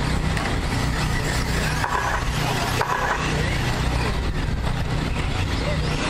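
Radio-controlled short course trucks racing around a track, a steady mix of motor and running noise.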